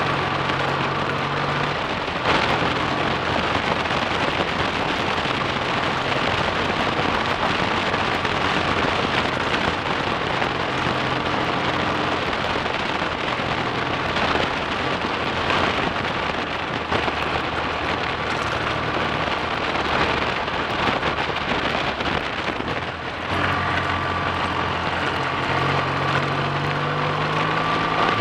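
BSA A65 Thunderbolt 650 cc parallel-twin engine running on the road, under a heavy rush of wind noise over the microphone. Its note rises near the end as it accelerates.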